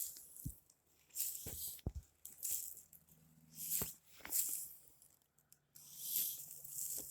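Intermittent rustling and crackling in short bursts, with a few sharp clicks and soft knocks.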